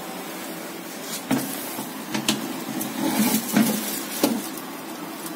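Metal baking tray being slid into an oven, knocking and scraping against the oven's rails and door: about five sharp clanks spread over a few seconds, over a steady background hiss.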